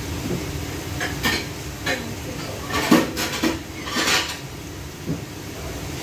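Dishes and kitchen utensils clattering: a string of separate knocks and clinks as plates and utensils are handled, the loudest about three seconds in.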